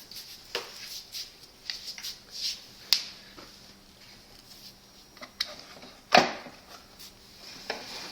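Scattered clicks and knocks from parts of a Hoover Max Extract Dual V carpet cleaner being handled as its dirty-water tank is taken off, with the loudest knock about six seconds in.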